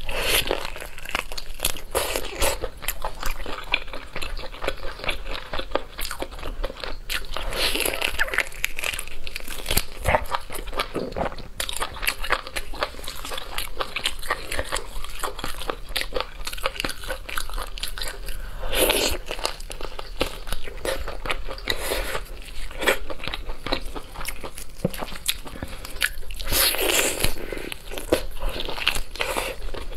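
Close-miked eating sounds: biting into and chewing sauce-glazed braised beef on the bone, a dense, continuous run of wet clicks and bites, with louder bites about eight, nineteen and twenty-seven seconds in.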